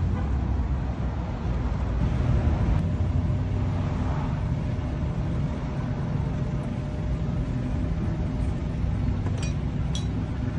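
Steady low hum of an engine running at idle, with a few light clicks near the end.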